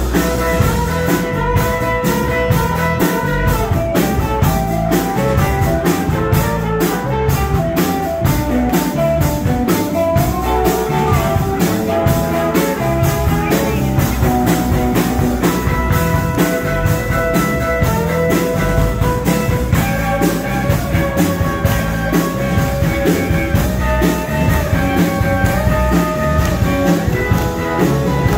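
Live rock and roll band playing: electric guitars over a steady drum beat.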